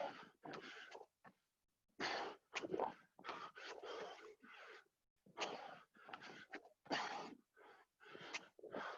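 Heavy, gasping breaths of a person working hard through a set of burpees, coming in short noisy bursts about two a second with brief silent gaps between them.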